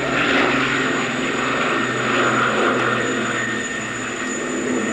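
Avro Shackleton's four Rolls-Royce Griffon piston engines with contra-rotating propellers, a steady drone as the aircraft flies by overhead.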